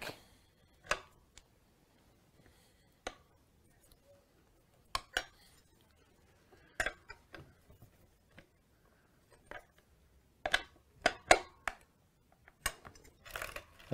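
Scattered metallic clinks and clicks of a 15 mm spanner fitting onto and turning the axle nuts of a child's pedal bike as they are tightened, with a quick run of clinks about ten to eleven seconds in.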